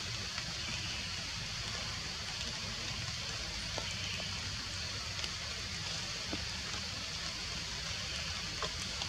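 Steady outdoor forest ambience: an even hiss, strongest high up, over a low rumble, with a few faint scattered ticks.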